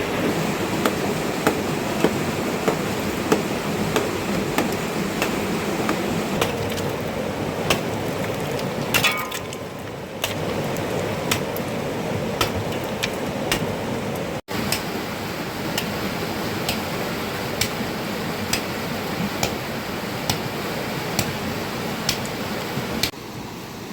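Steady, evenly spaced knocks of a hand tool striking, a little under two a second, over a constant rush of rain and running water; one strike partway through rings out louder.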